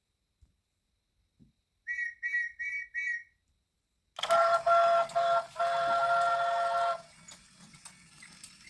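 Electronic sound effects from a Brio toy train set: four short high beeps, then a steady train-whistle-like tone lasting about three seconds, followed by faint clicking.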